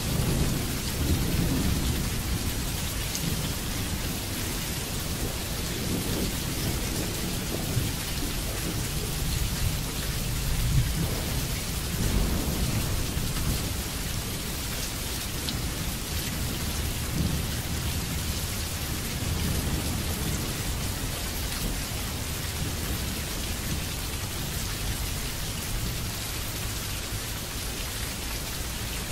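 Steady rain falling, with low thunder rumbling underneath that swells at the start and again about ten to twelve seconds in.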